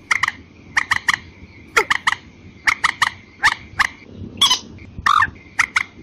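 Watercock and common moorhen calling in duet, played as a bird-lure recording. The calls come as quick clusters of two to four sharp, clucking notes about once a second, a few ending in a falling squeal, over a faint steady high tone.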